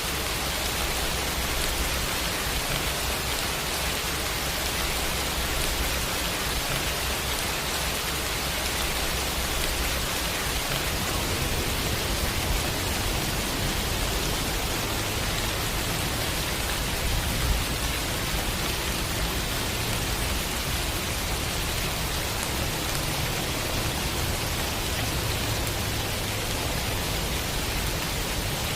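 Steady heavy rain, an even hiss of falling drops, with a low rumble underneath that swells and fades.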